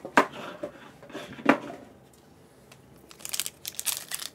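Two sharp knocks, then from about three seconds in a foil Yu-Gi-Oh! booster pack wrapper crinkling and tearing as it is opened.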